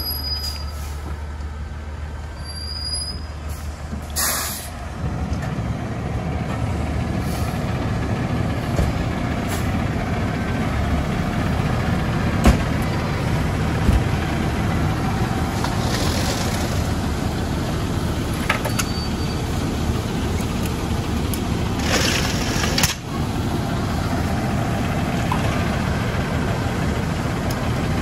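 Fire engine's diesel running steadily, growing louder about five seconds in, with short air-brake hisses about four seconds in and again around 22 seconds.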